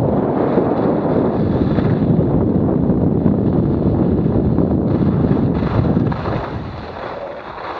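Wind buffeting an action camera's microphone while skiing downhill, mixed with the hiss of skis running over packed snow. The noise eases off near the end as the skier slows down.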